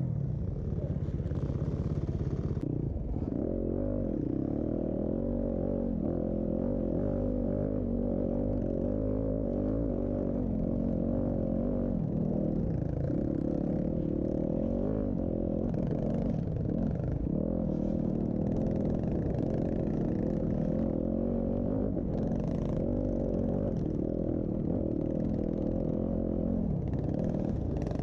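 Dirt bike engines racing, their pitch rising and falling as they rev.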